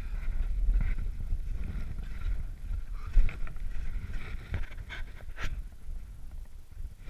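Wind buffeting an action camera's microphone, a gusting low rumble throughout. A few short knocks and rubs of gloves and ski poles come about four and a half to five and a half seconds in.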